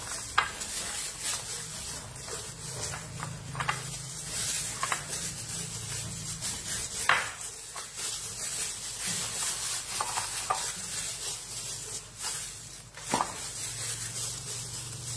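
Hands rubbing and massaging seasoning into the wet skin of a whole raw chicken, a continuous squishing and rubbing with a few sharp clicks and smacks against the metal tray.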